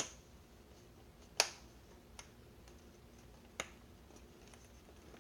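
Plastic inside screen bezel of an HP 15z laptop being pried off, its retaining clips snapping loose in sharp clicks: three loud snaps a second or two apart, with a couple of fainter ticks between.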